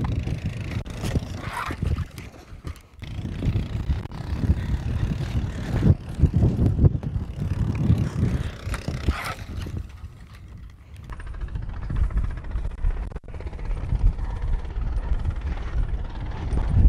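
ATV engine running as it tows a Heel-O-Matic roping dummy through arena dirt, its level rising and falling, with a brief lull about ten seconds in.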